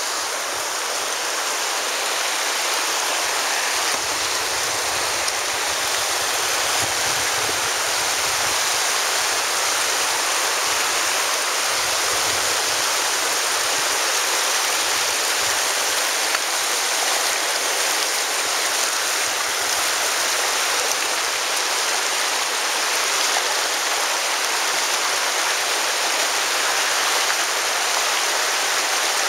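The Virgin River rushing steadily over its bed, as heard by someone walking in it.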